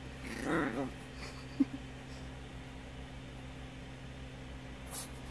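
Small Chihuahua-type dog giving a short wavering play growl for about half a second, followed by a single brief, sharp, loud blip about a second later.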